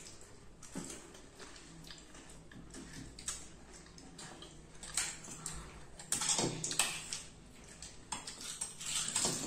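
Table eating sounds: crisp pani puri shells cracking and crunching, with a spoon scraping and clinking against a steel bowl of filling. A run of short irregular clicks and crunches, busiest and loudest in the second half.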